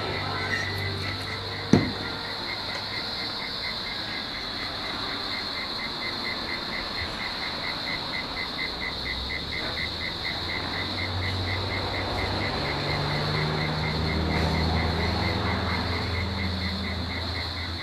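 Cicadas droning steadily in a continuous high-pitched chorus, with a faint regular chirping beneath it. A low hum rises and falls in the background, and there is one sharp knock a little under two seconds in.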